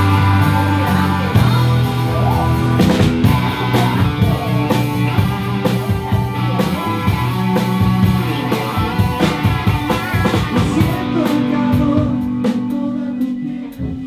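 Live rock band playing: electric guitars, bass guitar, drum kit and keyboard.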